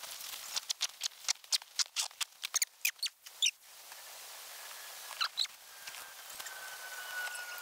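Nylon stuff sack rustling and squeaking in quick strokes as a sleeping bag is stuffed and compressed by hand, for about the first three and a half seconds, then quieter handling.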